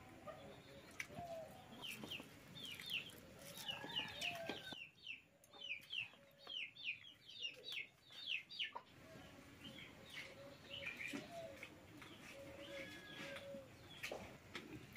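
Chickens clucking and birds chirping, with a run of quick, high, falling chirps in the first half and softer, lower calls later on.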